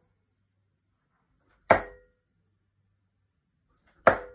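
Two steel-tip darts thudding into a Winmau Blade bristle dartboard, about two seconds apart, each strike followed by a brief ring.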